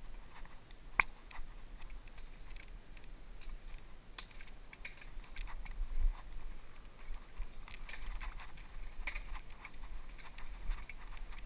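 Mountain bike rolling fast down dirt singletrack: irregular clicks, knocks and rattles of the bike over the bumpy trail, with a low wind rumble on the microphone. A sharp knock stands out about a second in.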